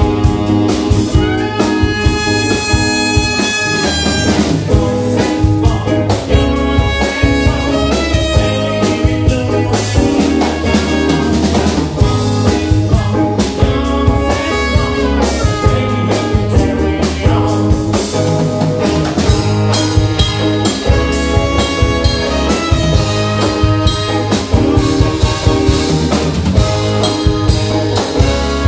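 A live band playing with a steady beat: drum kit, bass and electric guitar under a horn section of saxophone and trumpet playing held lines.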